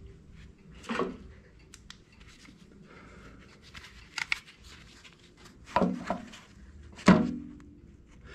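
Hands working on a garden tractor's belt pulley and drivetrain: scattered clicks and light metal knocks, with louder knocks about one, six and seven seconds in.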